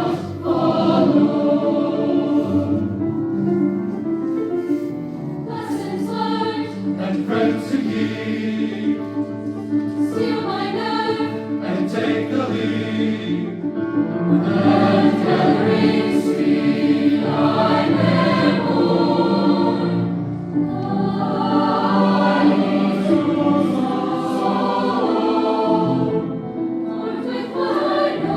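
An honor choir singing a choral piece, many voices together in sustained, shifting harmony.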